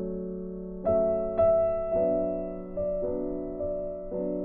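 Background instrumental music: slow, ringing keyboard notes struck every half second to a second over a steady held low tone.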